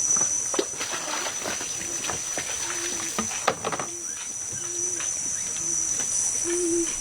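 Insects droning with a steady high-pitched whine, with scattered clicks and knocks and a few short, low, level-pitched calls.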